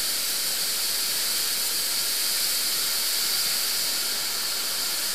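Steady rushing hiss of the Neglinnaya river's water flowing through its underground collector tunnel.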